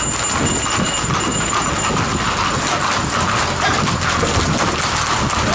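Hoofbeats of several horses running on a paved street, a dense, irregular patter of hoof strikes on the hard surface.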